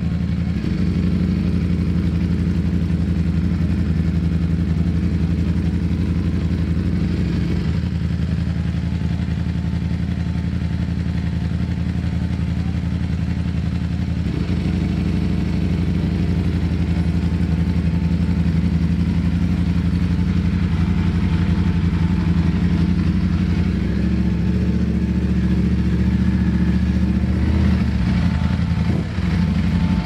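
2022 Ducati Streetfighter V4S's 1103 cc V4 engine running at low revs while cruising, its note changing abruptly a few times as the throttle and gears change.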